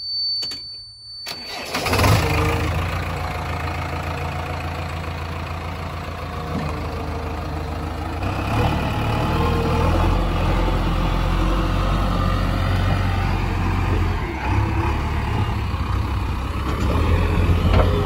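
JCB 3DX backhoe loader's four-cylinder diesel engine started with the key: a steady high beep for about a second, then the engine cranks and catches and runs on steadily, getting a little louder near the end.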